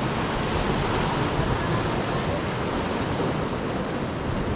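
Sea surf washing and breaking against rocks, a steady rushing noise.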